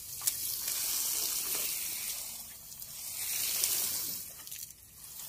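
Water from a metal watering can's rose spraying onto ash-covered soil and charred sticks: an even hiss that swells twice and eases off near the end.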